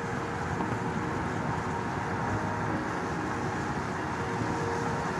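Car driving on a snow-covered road, heard from inside the cabin: a steady rush of road and tyre noise with the engine running under it.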